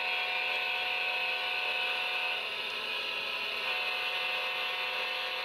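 HO scale model train rolling by: the Atlas Trainmaster diesel model's small electric motor and the freight cars' wheels running on the track make a steady whirring.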